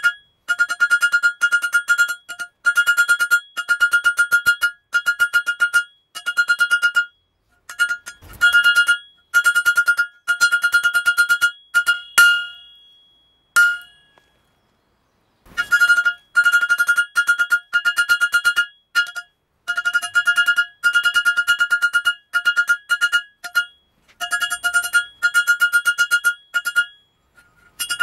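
Rapid hammer blows on hot steel on an anvil, each blow ringing at the same metallic pitch, in runs with brief pauses and one longer pause about halfway through. This is the rhythm of drawing out the reins of a pair of blacksmith's tongs.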